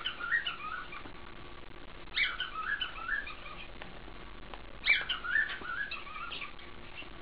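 A galah (rose-breasted cockatoo) calling in short chattering bursts of several quick wavering notes, three bursts about two and a half seconds apart.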